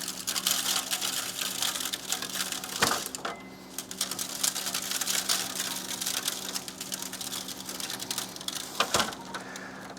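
Dry seasoning shaken from a shaker bottle, granules rattling steadily in the bottle with a short pause a little after three seconds in, and a couple of sharper knocks, one just before the pause and one near the end.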